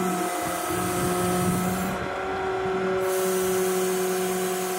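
Steady mechanical running of the 2019 Ram 5500 rollback tow truck, whose engine is the 6.7 Cummins diesel: an even whine holding one pitch over a hiss, and the hiss thins out for about a second, two seconds in.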